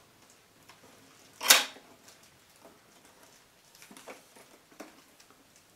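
Plastic housing of a MakerBot Digitizer desktop 3D scanner being handled and turned over: one sharp knock about a second and a half in, then a few lighter clicks and taps.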